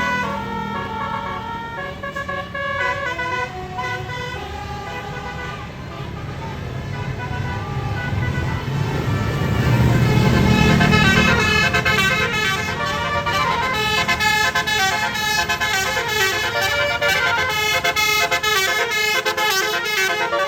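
Bus basuri horn playing a melody in stepped tones, with the bus engine rumbling louder about halfway through as it passes. The notes come quicker and denser in the second half.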